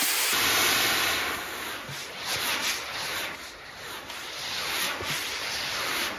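Several homemade rocket motors on a trebuchet arm burning with a rushing hiss that swells and fades.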